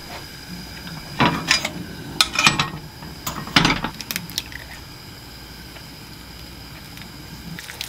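Three short bursts of clicking and knocking at a gas stove in the first four seconds, then quieter handling as an egg is cracked into a square nonstick frying pan.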